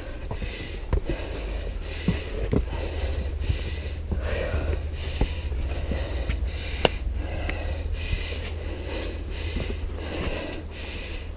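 Hard, rapid breathing of a hiker on a strenuous climb, close to the microphone, about two breaths a second. Small clicks and scuffs come now and then over a steady low rumble.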